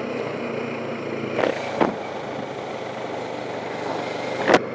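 Motorcycle engine running steadily while riding, with road and wind noise, and three brief thumps, the last near the end the loudest.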